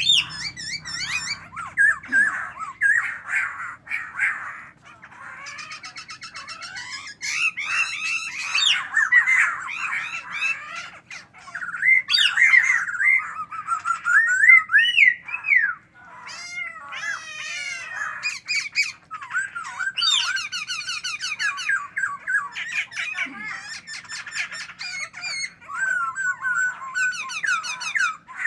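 Pet songbird singing a long, varied song of rapid chirps, harsh squawky notes and whistled up-and-down glides, with short pauses between phrases.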